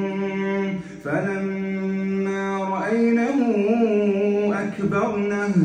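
A male imam recites the Quran in a melodic tajweed chant, holding long notes and ornamenting the pitch. There is a short break about a second in, the line rises and turns about three seconds in, and he pauses again at the end.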